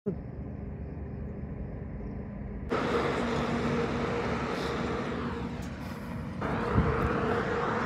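A vehicle engine running steadily, a low hum over road noise, that jumps abruptly louder about three seconds in and again a little past six seconds.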